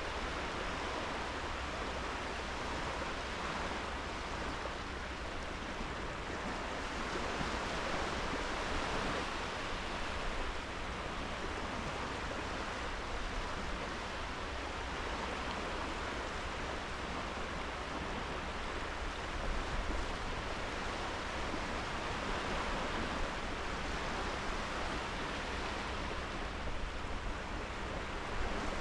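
Sea surf washing onto a sandy beach: a steady hiss of small waves that swells gently every several seconds.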